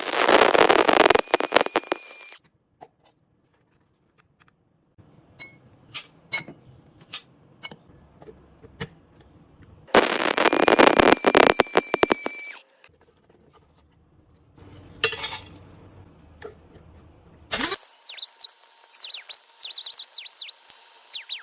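Electric kitchen grinder run in short bursts, with a loud grinding rattle for two to three seconds at a time and light clicks and taps between bursts. In the last few seconds the motor gives a high whine that dips in pitch over and over as it grinds.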